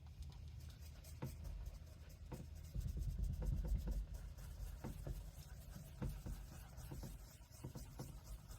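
Scratch repair compound being rubbed by hand into painted truck bodywork, a soft, irregular scrubbing with light scratchy ticks that grows a little louder about three seconds in.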